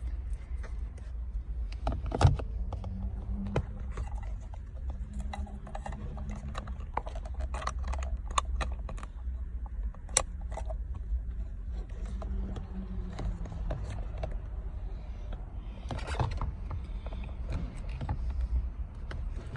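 Scattered plastic clicks, taps and rattles from an airbag module being worked into a steering wheel hub, with two sharper clicks about 2 and 10 seconds in. Under them is a steady low rumble and faint voices.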